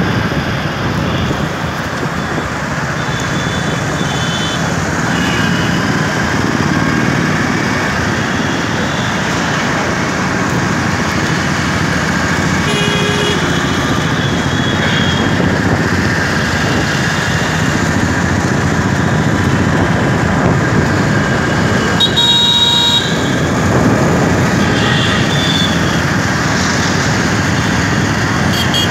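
Steady engine and road noise of a motorcycle riding through city traffic, with vehicle horns tooting now and then. One loud horn blast comes about three-quarters of the way through.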